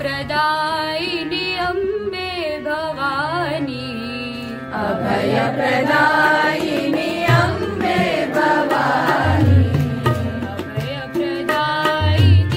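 Devotional bhajan singing: a melody of long, bending held notes over a steady instrumental drone, with hand-drum beats coming in about halfway.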